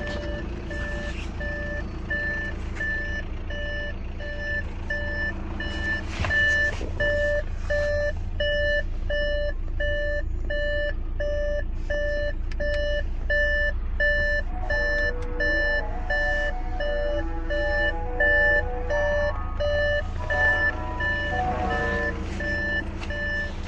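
Electronic warning beeps repeating evenly about twice a second over a steady low engine hum; from about halfway through, further stepping tones sound alongside.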